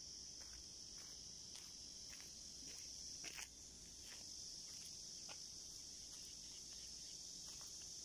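Steady, faint, high-pitched buzzing of an insect chorus, with a few faint clicks and a brief louder click about three seconds in.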